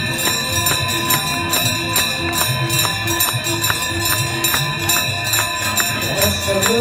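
Aarti devotional music: hand bells ringing on and on, with evenly repeated metallic strikes and a short low note that repeats.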